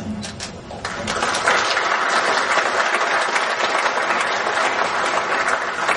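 Large audience applauding in a lecture hall: a few scattered claps at first, swelling into full, steady applause about a second in.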